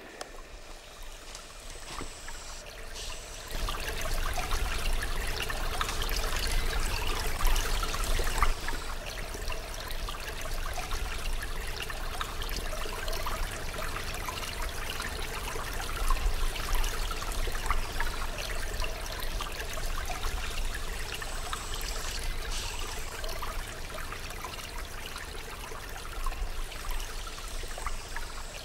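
A small stream trickling and splashing over rocks, with a low rumble underneath. It grows louder about three to four seconds in.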